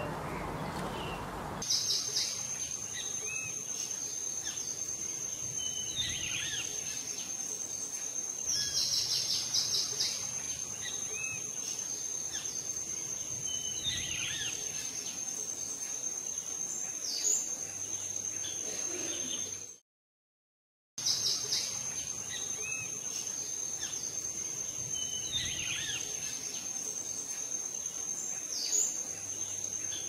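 Woodland ambience: a steady high insect trill, with scattered short bird chirps and a few quick rattling trills. The sound cuts out completely for about a second midway, then resumes.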